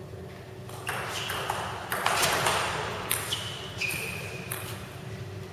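Table tennis ball and paddles at the end of a rally: several sharp strikes, each with a short ringing ping, and a louder clatter in the middle.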